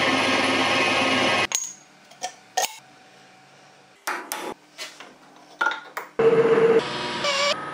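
A metal lathe turning a tube with the cutting tool engaged, stopping abruptly about one and a half seconds in. A few sharp metallic clicks and knocks follow. Then a drill press drills into a metal tube held in a vise, with a short wavering tone near the end.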